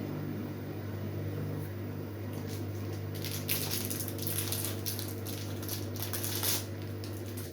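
LG Direct Drive washing machine running with the drum turning: a steady low hum under water swishing and splashing, which swells in the middle. The sound cuts off abruptly at the end.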